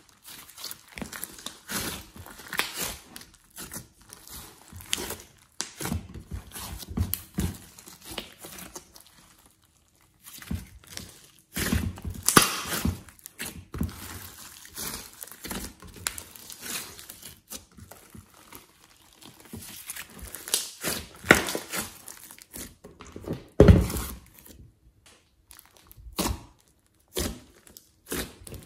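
Hands squeezing, stretching and pressing a large lump of glossy slime mixed with clay and glitter, making uneven sticky squelches in bursts, with a couple of short pauses.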